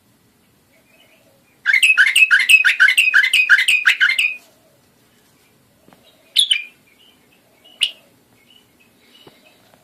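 White-eared bulbul (Iraqi bulbul) calling: a fast run of about nine loud chirping notes lasting a couple of seconds, then two single sharp calls a little over a second apart.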